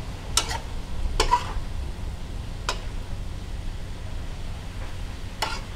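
Metal spatula scraping and clanking against a wok as squid and flowering garlic chives are stir-fried, a handful of sharp strikes spread through, over a steady low rumble.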